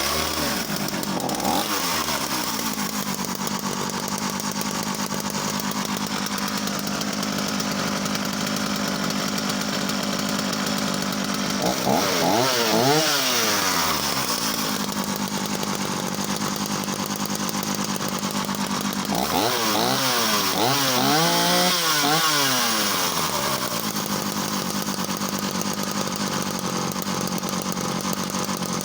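Partner R35 85cc two-stroke chainsaw catching from a cold start and then idling steadily. It is revved up and back down about twelve seconds in, and again in a few quick blips about twenty seconds in.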